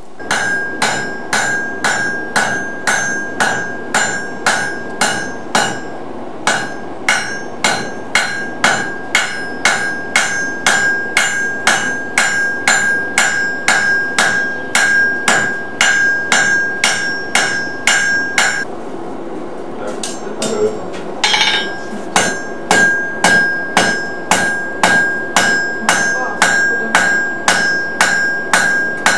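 Blacksmith's hand hammer striking hot iron on an anvil in a steady rhythm, about two to three blows a second, each blow leaving a bright ringing from the anvil. The hammering stops for about two seconds past the middle, then starts again at the same pace.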